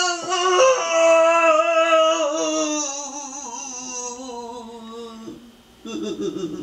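A man's long, drawn-out theatrical wail of anguish, sliding slowly down in pitch as it fades, then a short rough sob near the end.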